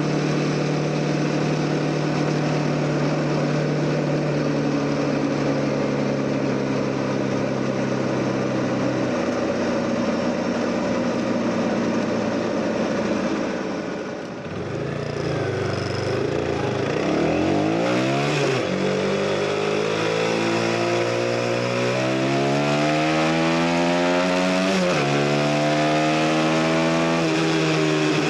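CF Moto NK 250's single-cylinder engine running under way: a steady cruising note for about the first half, a brief ease-off of the throttle, then accelerating with rising pitch. The pitch drops sharply at two upshifts, and the note falls away again near the end.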